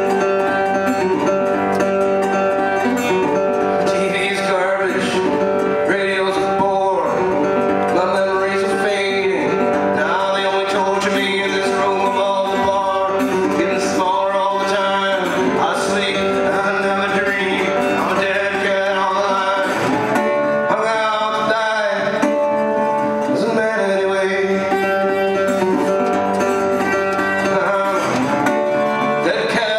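Acoustic guitar playing a steady country-blues tune, with singing at times.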